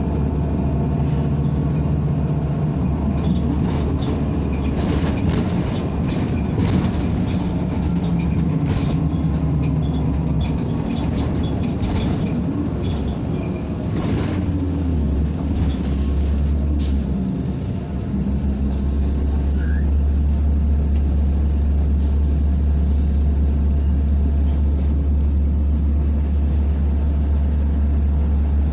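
A NABI 45C-LFW city bus under way, heard from inside the cabin: a steady low engine drone with scattered rattles and knocks. A little past halfway the drone dips and shifts for a few seconds, then holds strong and even.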